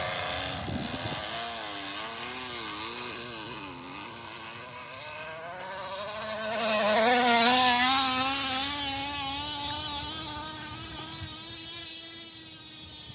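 Crushed plastic bottle slapping against a bicycle wheel's spokes, making a motorcycle-like buzz. Its pitch wavers up and down, climbs to its highest and loudest about seven seconds in, then holds and fades toward the end.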